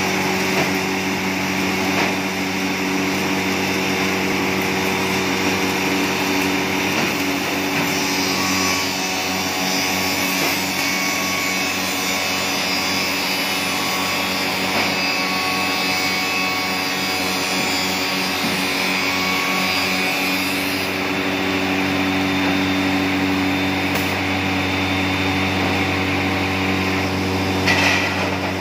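Finger-jointing machinery running steadily: a constant motor hum under the rushing noise of the dust-extraction hoses, with a brief louder moment near the end.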